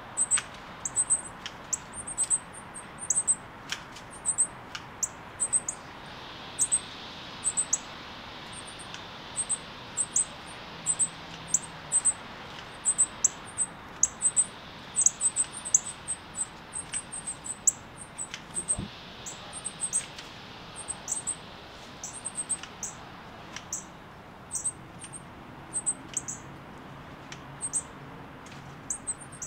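Northern cardinal nestlings peeping: very high, thin short calls in quick irregular runs of several a second, over a faint steady hiss.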